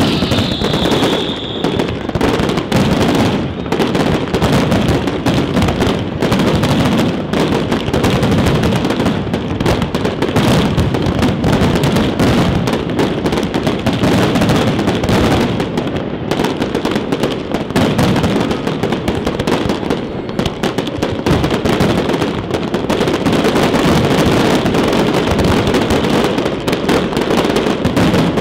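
Large fireworks display: a dense, unbroken barrage of shell bursts, bangs and crackling, with a falling whistle in the first couple of seconds.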